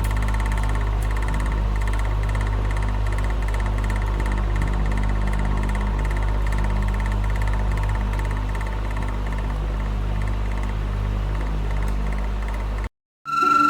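Electric fan running steadily: a low motor hum with a faint steady whine and a fast flutter. It cuts off abruptly near the end.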